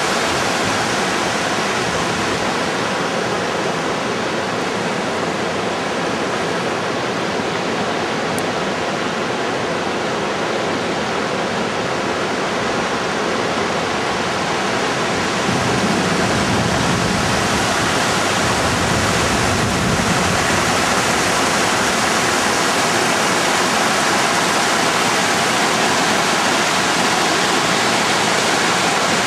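Water of a small waterfall and shallow rapids rushing over rock slabs: a steady, even rush that gets slightly louder about halfway through.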